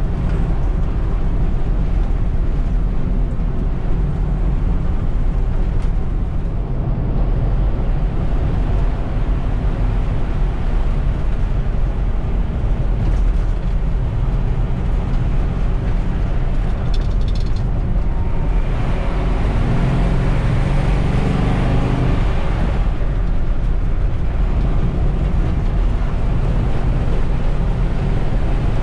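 1950 Ford F2's flathead V8 running on the move, heard from inside the cab with road noise. About two-thirds of the way through it gets louder for a few seconds with a rising engine note, then settles back to a steady drone.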